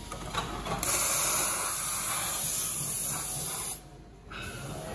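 Vertical CNC V-groover's cutting tool scraping a V-groove along a metal sheet: a steady, high hiss that starts about a second in, runs for about three seconds and cuts off abruptly.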